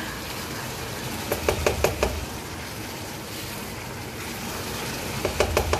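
Chicken and vegetables sizzling as they stir-fry in a non-stick pan, with a black plastic spoon knocking and scraping against the pan in two short flurries, about a second and a half in and again near the end.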